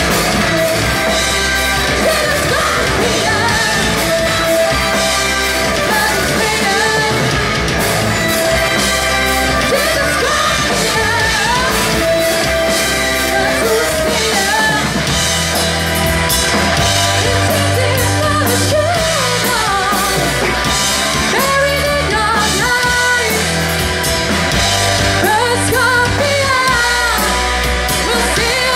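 Hard rock band playing live and loud: a female lead singer over distorted electric guitars, bass guitar and a drum kit.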